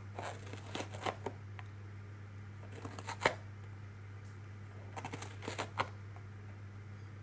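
A cat clawing and tearing at something, heard as crackly rustling in three short bursts about two seconds apart, over a steady low hum.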